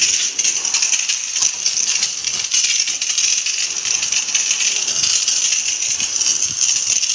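High-pressure water jet from a pressure-washer spray gun hitting the coil and plastic cover of a window-type air conditioner being washed: a steady, loud hiss with spattering.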